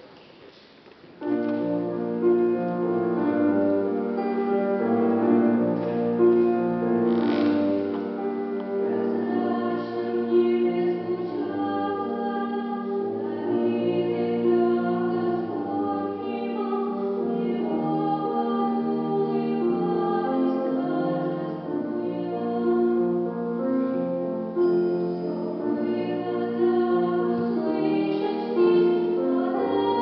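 Choir singing in full chords, starting about a second in and holding long notes that move from chord to chord.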